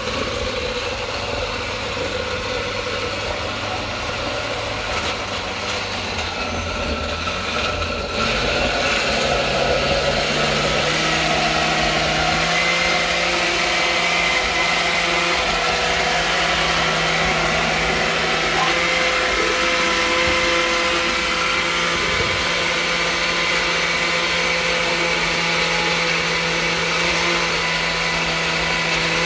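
Oster glass-jar blender running continuously, chopping and puréeing sofrito ingredients (peppers, cilantro, recao) as more are added. About eight seconds in the motor gets louder and its pitch climbs in steps, then holds steady.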